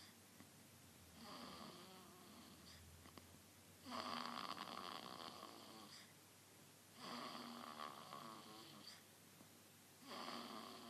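Newborn baby snoring in its sleep: four snores roughly three seconds apart, the one about four seconds in the loudest.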